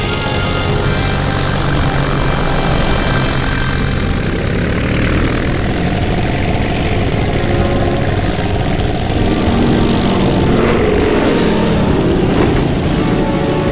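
Several biplane piston engines and propellers running loud and steady as the planes take off, swelling briefly about five seconds in.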